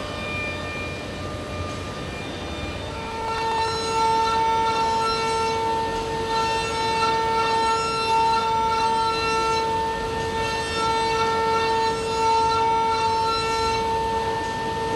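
A five-axis machining center's high-speed spindle milling an aluminium aerostructure part, giving a steady high-pitched cutting whine. The whine grows louder and settles into one steady tone about three seconds in.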